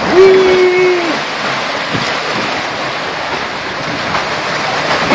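Log flume boat riding along the water channel, with a steady rush of flowing water and wind on the microphone. About a second in, a held steady tone lasts about a second.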